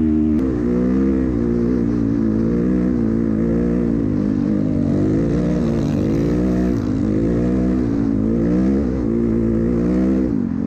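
Off-road vehicle engine revving up and down over and over, its pitch rising and falling about once a second.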